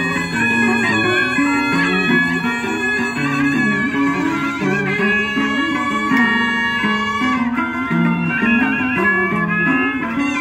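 Vietnamese traditional Cao Dai ritual ensemble music played live. A bamboo flute and a bowed two-string fiddle carry the melody over a plucked moon lute and zither, with several melodic lines moving together without a break.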